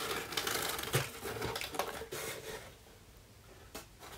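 A cardboard mailer box being opened and crumpled brown kraft packing paper being rustled and crinkled by hand, busy for the first two or three seconds, then quieter, with one sharp click near the end.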